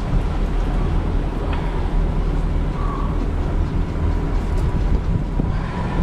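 Outboard engines of a 44-foot Contender sportfishing boat running steadily at low speed, a constant low hum with water and wind noise over it.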